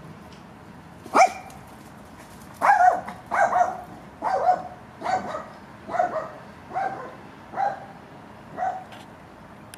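A dog barking: one bark about a second in, then a run of eight barks a little under a second apart, growing slightly fainter toward the end.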